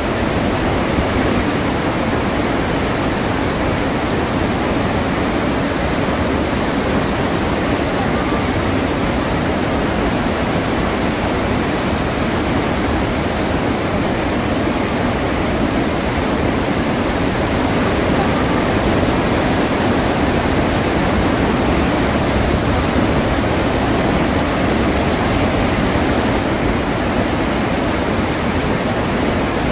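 Iguazu Falls: a loud, steady rush of falling water, deep and unbroken.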